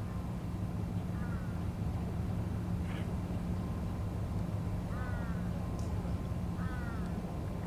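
A bird giving short falling calls about four times, over a steady low hum.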